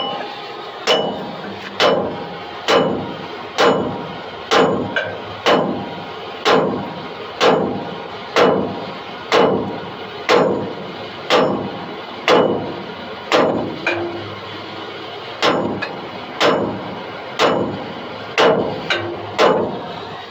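Hammer striking metal about once a second, each blow ringing briefly, with a short pause about two-thirds through: a seized trailer wheel bearing being pounded loose from its spindle.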